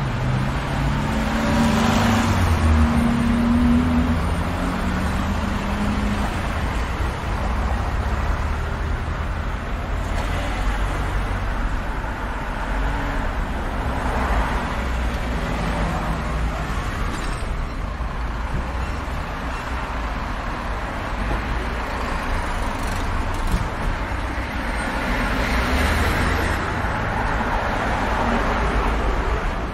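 Busy street-intersection traffic: cars driving past one after another, a steady rumble of engines and tyres that swells as each vehicle goes by. In the first few seconds a vehicle's low engine note rises and holds.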